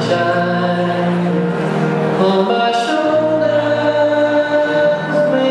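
Skating program music with voices singing long held notes, like a choir. The chords change every second or two.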